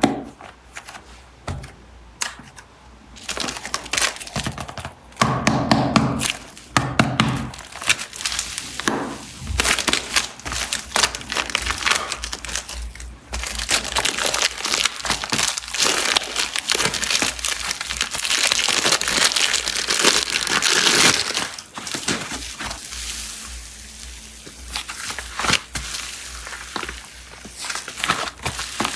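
Plastic packaging crinkling and rustling with many sharp clicks and taps, as packs of super clay are unwrapped, densest in a long stretch just past the middle. A short pitched sound comes about five to seven seconds in.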